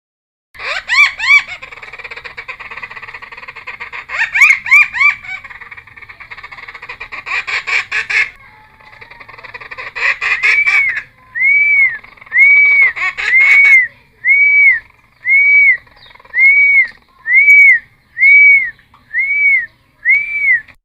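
Helmeted friarbird (cucak timor) singing loudly: a varied run of whistled slurs and harsher notes, then about ten identical arched whistled notes repeated about once a second.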